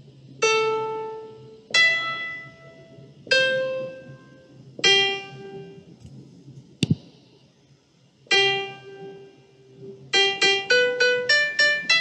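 Keyboard notes played one at a time, each struck and ringing out as it fades, about every second and a half. A sharp click comes about seven seconds in, then a quick run of notes near the end.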